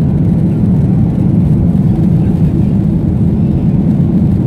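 Steady low rumble of jet engines and airflow heard inside the cabin of a Ryanair Boeing 737 as it climbs after takeoff.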